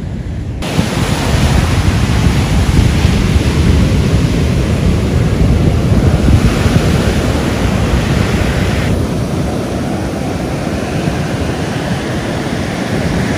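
Ocean surf breaking and washing up on a sandy beach, a dense steady rush, with wind buffeting the microphone.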